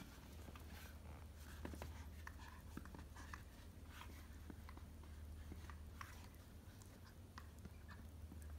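Faint scattered clicks and taps from a Shih Tzu puppy moving about a tile floor with a ball in its mouth, over a low steady hum.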